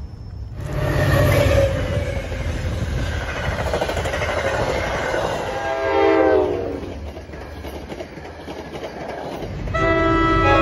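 A passing train rumbling along the rails while its horn sounds. About six seconds in, the horn's chord drops in pitch as the train goes by, and a fresh horn blast starts near the end.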